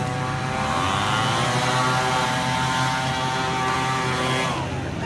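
Leaf blower motor running steadily, revving up about a second in and winding back down near the end.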